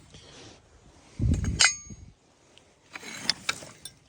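Scrap steel angle iron being pulled from a junk pile: a dull thump and a ringing metal clang about a second and a half in, then scraping and clinking near the end.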